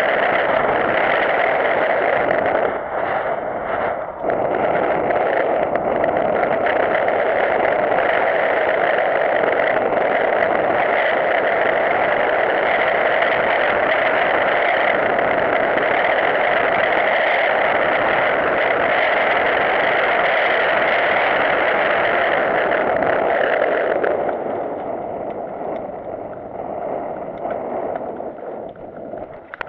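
Loud, distorted rush of wind on a bike-mounted action camera's microphone, mixed with tyre and trail noise from a mountain bike descending a dirt singletrack. About 24 seconds in it drops to a quieter, duller rumble.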